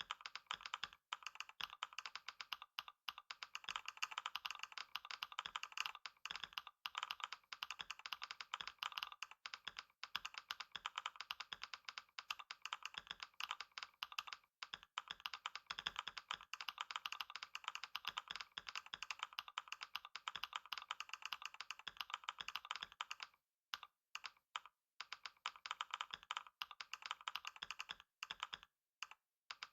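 Computer keyboard typed on very fast in a continuous stream of rapid key clicks during a long typing test. There are a few brief pauses near the end.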